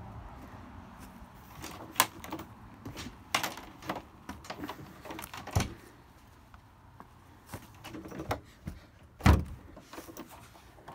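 Metal side door of an ambulance's patient compartment being handled, with a series of clicks and knocks from the latch and panel. The loudest is a heavy thump about nine seconds in.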